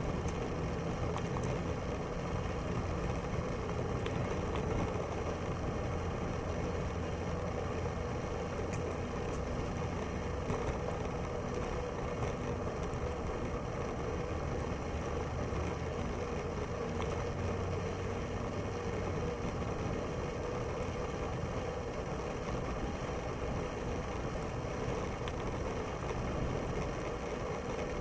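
Steady rumble and hiss of a Moulton bicycle ride on a paved path: wind on the microphone mixed with tyre and drivetrain noise, with a steady hum underneath.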